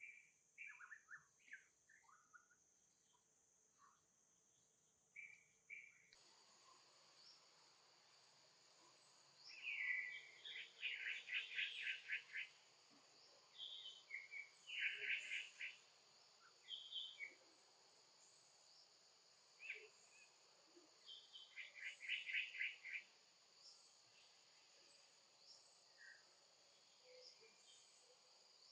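Birds chirping and trilling in short bursts over a steady high insect drone. The background changes abruptly about six seconds in, when the drone starts.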